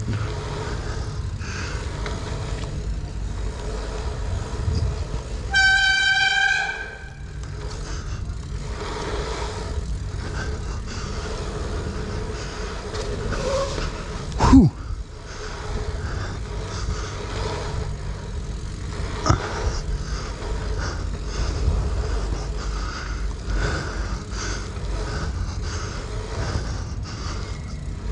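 Dirt jump bike rolling over a pump track, a steady rumble of tyre noise. About six seconds in, a bicycle brake lets out a loud, high squeal for about a second. Halfway through comes a short squeal that falls quickly in pitch, the loudest sound.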